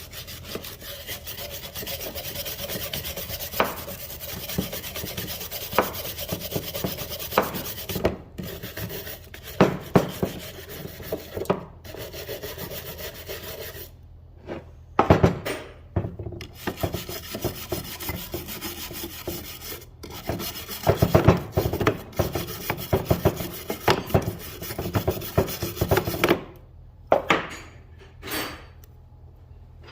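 A hand tool scraping and rubbing on metal in repeated strokes, steady at first, then in broken spells with sharp knocks: old gunk and gasket maker being cleaned off the starter switch mounting on a Ford Jubilee tractor.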